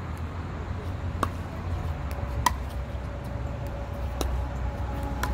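Pickleball rally: paddles striking the plastic ball with sharp pops, four hits spaced about one to two seconds apart, over a steady low rumble.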